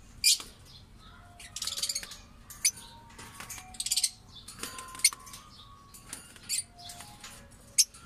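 Caged lovebirds chirping: short, high-pitched calls, several of them sharp and loud, coming at irregular intervals.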